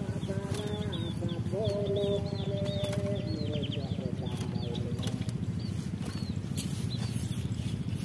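Rapid, repeated high chirps of a prinia call, played from an MP3 player as a lure to trap wild prinias. A lower wavering tone runs under the chirps in the first few seconds, over a steady low buzz.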